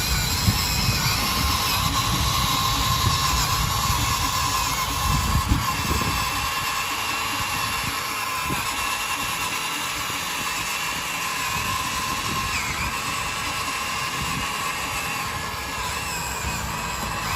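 Electric motor and plastic gearbox of a radio-controlled construction model whining steadily at a high pitch, with a rough low rumble under it for the first several seconds.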